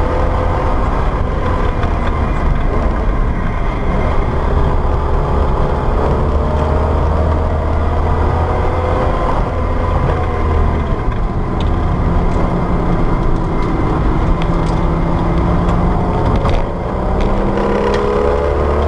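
Alfa Romeo Milano with a 3.5-litre engine conversion at speed on a race track, heard from inside the cabin over wind and road noise. The engine note falls as the car slows from high speed, then climbs again in a lower gear, with a short drop in level near the end as it shifts. A few sharp clicks are heard in the second half.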